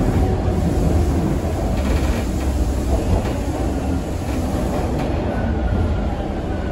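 TTC subway train heard from inside the car as it runs through the tunnel: a steady low rumble of wheels on the rails. It eases slightly near the end as the train comes into a station, and a faint high whine joins in.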